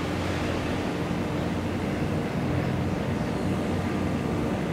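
Steady low drone of harbour tugboat diesel engines at work, with an even hum that holds its pitch.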